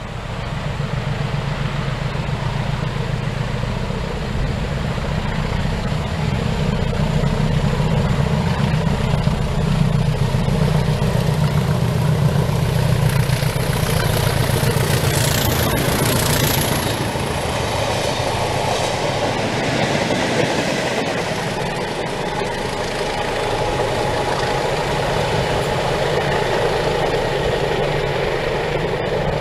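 Class 20 diesel locomotives, English Electric 8SVT engines, working in multiple with a deep, steady engine drone as they approach and pass. A hiss of wheel and rail noise rises about halfway through as they go by.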